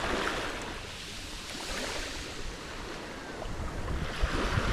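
Small waves washing up a sand beach, with wind rumbling on the microphone; the surf swells louder near the end.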